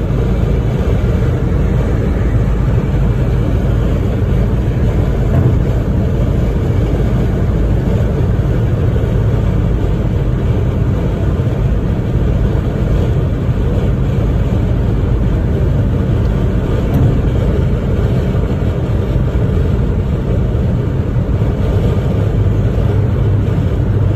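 Steady road and engine noise inside a moving car's cabin while cruising on a motorway: an even low rumble of tyres and engine that does not change.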